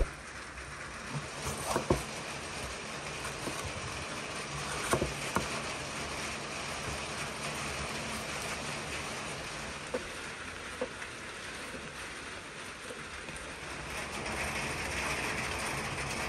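Kitchen knife cutting bell peppers on a wooden cutting board: a few sharp knocks of the blade against the board, scattered through, over a steady hiss of rain.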